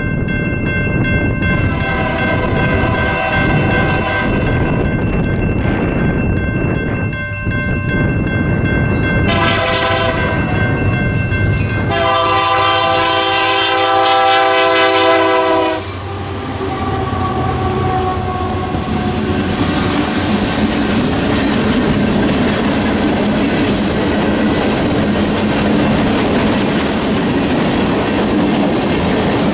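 Union Pacific diesel locomotive sounding its horn in four blasts as it approaches, the last the longest and loudest and cutting off suddenly as the locomotive passes. After that, the cars of a mixed freight train roll past with a steady rumble of wheels on rail.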